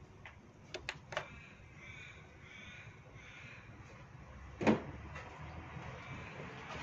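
A few light clicks and then one sharp knock, like a tool or part handled in an engine bay, with a bird calling several times in the background.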